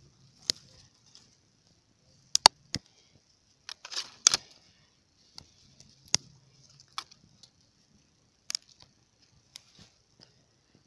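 Wood campfire crackling: irregular sharp pops and snaps, the loudest a couple of seconds and about four seconds in, over a faint steady hiss.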